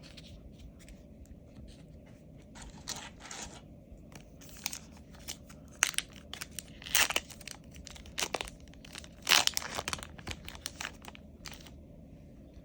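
Foil booster pack wrapper being torn open and crinkled, with scattered rustling bursts as the pack and its cards are handled.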